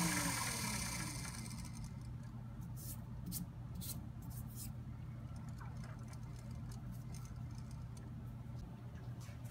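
Mini lathe switched off: its motor whine cuts out and drops away in pitch within about half a second as the chuck spins down. A low steady hum follows, with a few faint light ticks about three to four and a half seconds in.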